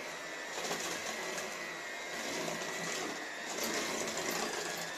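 Electric hand mixer running steadily with a faint high whine, its beaters whisking eggs and sugar in a bowl, being beaten until pale for cake batter.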